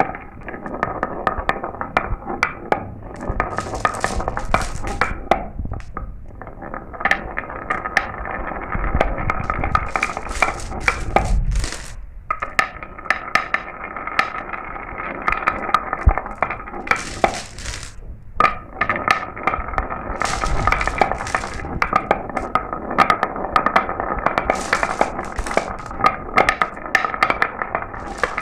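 Marbles rolling down a marble run track with a steady rolling rattle and many quick clicks and clinks as they knock against the track and each other. The sound thins out briefly a few times.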